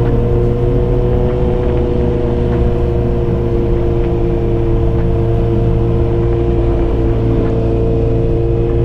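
Yamaha XJ6's 600 cc inline-four running through a Dominator GP full exhaust system with the dB killer fitted, held at steady revs with an unchanging note.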